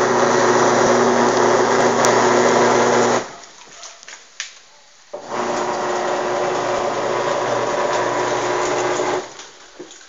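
Manual washing machine's motor turning the agitator on a microcontroller timer: it runs with a steady hum until about three seconds in, stops for about two seconds, then starts again and runs about four seconds before cutting off near the end. This is the controller's cycle of four seconds turning, two seconds rest, alternating clockwise and counterclockwise.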